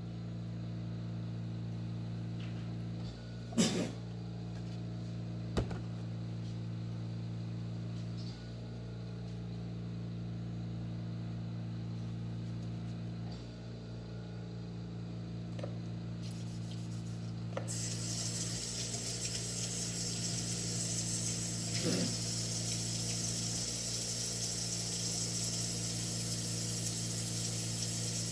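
A low, steady hum with two brief knocks in the first six seconds. About two-thirds of the way in, a steady hiss of running water starts and keeps going.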